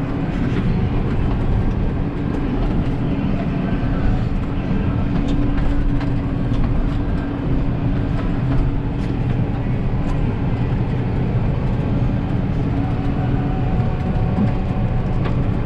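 Tractor engine running steadily, heard from inside the cab, a constant drone with a steady hum and light rattles and clicks.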